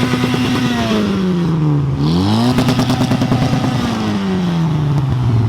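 Loud car engines accelerating past, one after another. The first engine note falls in pitch over the first two seconds; about two seconds in a second climbs sharply, holds, then falls away near the end.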